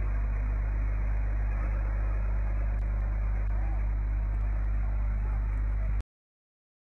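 Steady rushing roar of air and dust blasting out of a desert blowhole, with a deep rumble underneath; it cuts off abruptly about six seconds in.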